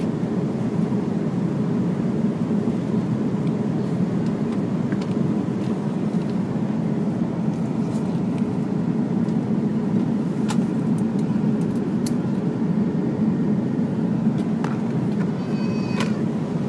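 Steady cabin noise of an Airbus A330-200 in cruise, a low, even rush. A few light clicks come from the seatback screen and the seat pocket being handled.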